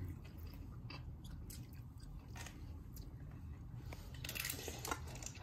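A person chewing a mouthful of rice and vegetables, with small scattered clicks and a brief scratchy rustle about four seconds in.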